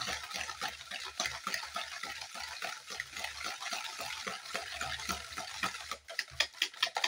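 Runny egg-and-sugar batter being beaten by hand in a bowl: quick, even strokes of the utensil swishing through the liquid and clicking against the bowl, about four a second, with sharper, louder clicks near the end.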